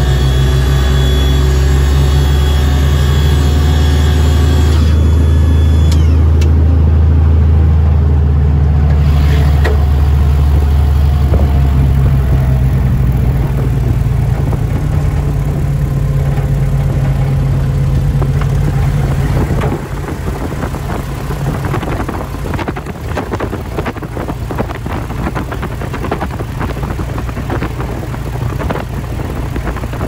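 Cessna O-1 Bird Dog's six-cylinder Continental engine running steadily as the aircraft taxis on grass. It is throttled back a little under two-thirds of the way through, after which knocks and rattles from the airframe rolling over the ground come through.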